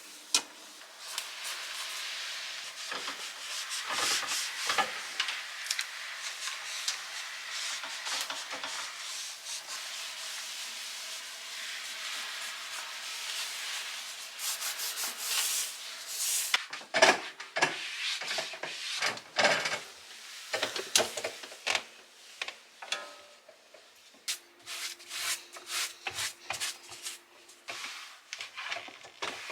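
Steady rubbing and scrubbing on a hard surface for about sixteen seconds, then a run of short knocks and clatters as things are handled and set down.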